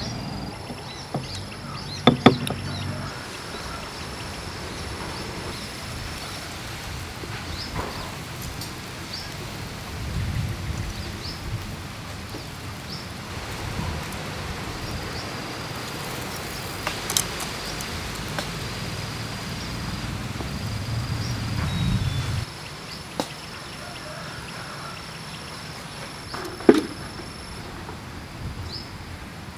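Insects calling in a repeating, high-pitched, dashed trill over a steady outdoor background. A few sharp knocks stand out: a double knock about two seconds in from a stone pestle in a stone mortar, and later single clicks of metal utensils on the wire grill rack.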